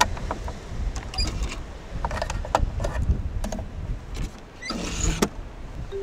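Clicks, knocks and rattles of a plastic course-certification stamp on a coiled cord being handled and put back into its wooden box. There is a longer scrape and rattle near the end, and a low wind rumble on the microphone throughout.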